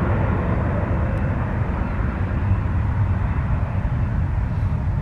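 Jet airliner engines, a steady loud rumble with no sharp changes.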